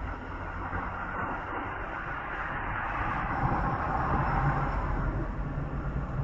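Road vehicle travelling on a highway: a steady low rumble of engine and tyres under a rushing road noise that swells about three to five seconds in.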